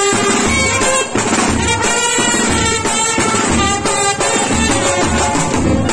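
Brass band music: trumpets and saxophones playing a melody over a steady drum beat.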